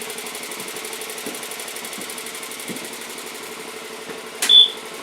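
Sears Suburban garden tractor engine running steadily. About four and a half seconds in, one short, sharp, loud high-pitched sound cuts in over it.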